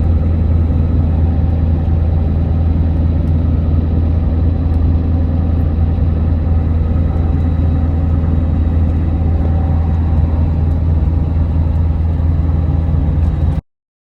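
Ford 7.3 Powerstroke diesel engine idling: a loud, steady, deep drone that cuts off abruptly near the end.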